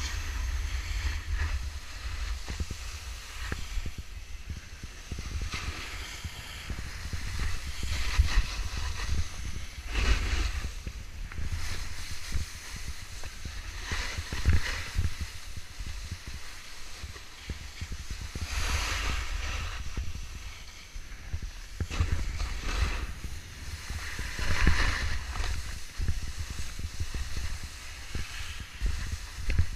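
Wind noise on the microphone of a camera carried by a skier going downhill, with a rushing scrape of ski edges on packed snow that swells at each turn, every two to four seconds.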